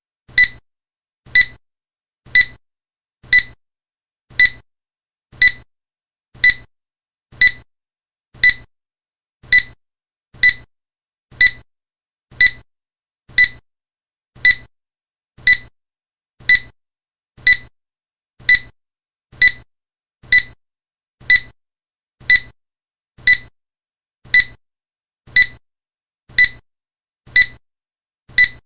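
Countdown timer sound effect: a short, high electronic beep once a second, evenly spaced and steady, about thirty beeps in all.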